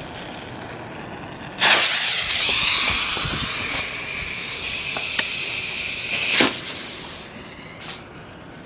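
Consumer 60-gram canister shell firework, a gold strobing willow, going off: a sudden loud blast about a second and a half in, then several seconds of hissing with a steady high whistle-like tone and a few cracks. The sharpest, loudest crack comes near the end before it dies away.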